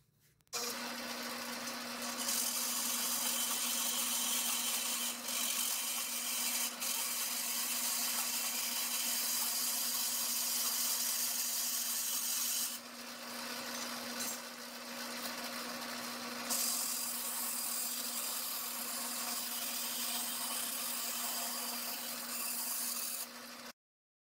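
A 4x6 metal-cutting band saw, stood upright as a vertical saw, runs with a steady motor hum under the blade noise while a workpiece is fed into the blade. It starts about half a second in, gets louder as the cut bites at about 2 s, eases and rises again as the feed pressure changes, and cuts off abruptly near the end.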